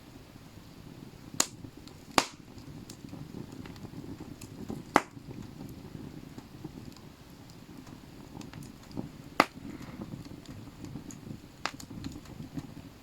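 Campfire crackling, with a handful of sharp, separate pops from the burning wood over a low steady rumble of the flames.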